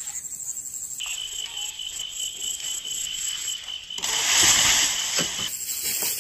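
Insects trilling steadily at a high pitch, with a second, lower trill joining about a second in and stopping near the end. About four seconds in, a louder rush of noise lasts for over a second.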